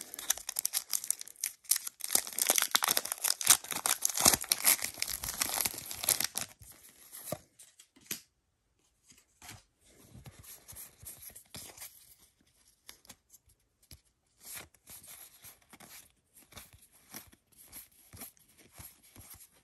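Foil wrapper of a Pokémon Champion's Path booster pack crinkling and tearing open for about six seconds. After a short pause, softer, scattered rustles and ticks of the trading cards being handled and slid through by hand.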